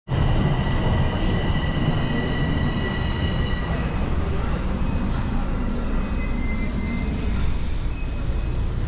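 Toronto subway train running through the station, its wheels squealing on the rails in several high, steady tones over a low rumble.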